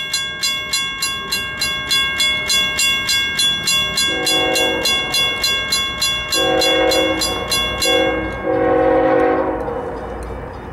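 A grade crossing bell clangs steadily at about three strikes a second as the lead locomotive of a CSX freight, an ES44AH, sounds its air horn in three long blasts for the crossing. A low train rumble grows under it near the end.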